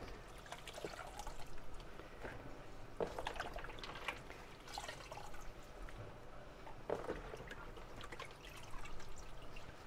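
Hands sloshing through sliced zucchini in a basin of rinse water, with irregular splashes and drips as handfuls are lifted out and squeezed.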